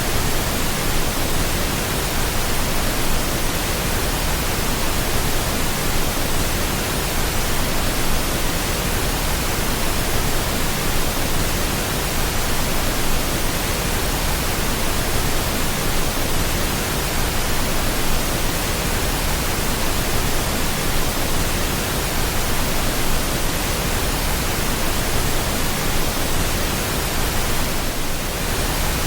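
Steady pink noise: a constant, even hiss spread across all pitches, dipping very slightly for a moment about a second before the end.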